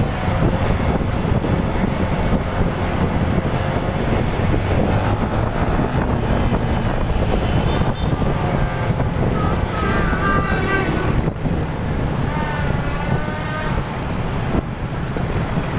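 Wind buffeting the microphone on a moving motorbike, over the steady noise of motorbike engines and traffic. A couple of brief wavering high tones rise above it about ten and thirteen seconds in.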